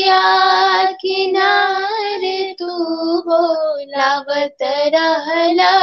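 Two young women singing a Bhojpuri folk song together, holding long drawn-out notes broken by short pauses for breath.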